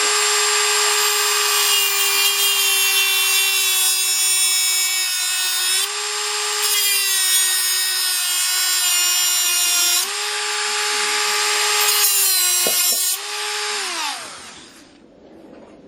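Black & Decker rotary tool (Dremel-type) running at high speed with a steady high whine as it cuts into the retaining washer on a hand truck's wheel axle. The pitch sags briefly several times as the cut loads it, and it spins down near the end.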